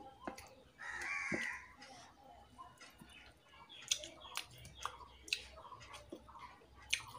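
Fingers mixing rice in a stainless steel bowl, with scattered light clicks and taps against the metal. About a second in, a short pitched call stands out as the loudest sound.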